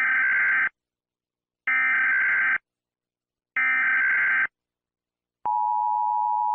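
Emergency Alert System signal: three bursts of the SAME digital header, each about a second of harsh buzzing data tones with short gaps between them. Near the end the steady two-tone attention signal begins and holds.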